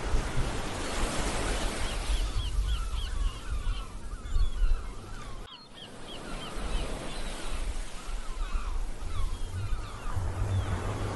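Seaside ambience: surf washing with a low rumble, and birds calling in quick runs of short chirps. It dips out briefly about halfway through.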